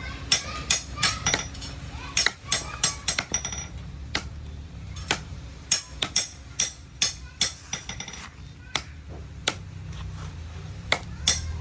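Light hammer taps on metal, irregular, two or three a second, several with a short high ring.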